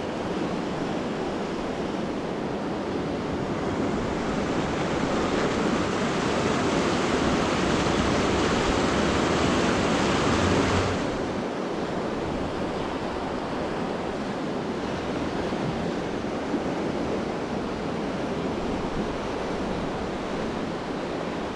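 Steady rush of river water, with wind on the microphone. The rush drops off suddenly about eleven seconds in and carries on a little quieter.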